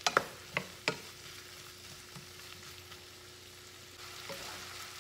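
Diced salami and peppers sizzling in a frying pan as the salami browns. A wooden spoon stirs them, knocking against the pan four times in the first second, then the sizzle goes on steadily.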